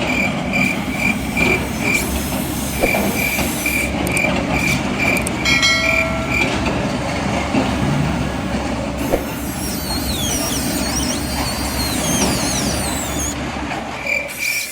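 RC model construction machines running with a steady engine-like rumble, over a rapid, evenly spaced high beeping of about four beeps a second. The beeping stops for most of the middle and comes back near the end.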